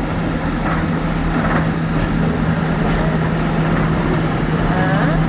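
Snowdon Mountain Railway train's engine running with a steady low drone and constant hum.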